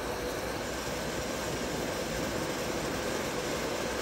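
WMW-Heckert universal milling machine's table feed drive running, the table traversing lengthwise at feed rate: a steady mechanical hum with a faint steady whine.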